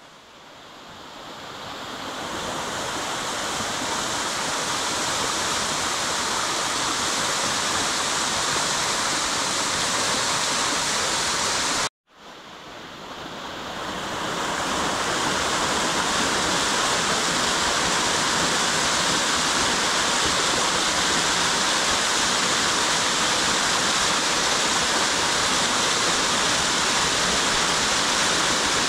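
Mountain waterfalls pouring over rock ledges into shallow pools, a steady loud rush of falling water. The sound fades in at the start, cuts out for a moment about twelve seconds in, and fades back up over the next couple of seconds.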